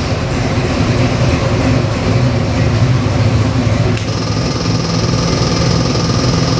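Carbureted Ford 351 Windsor-based 408 cubic-inch stroker small-block V8 running steadily at idle on an engine test stand, just after being started. A high steady whine joins about four seconds in.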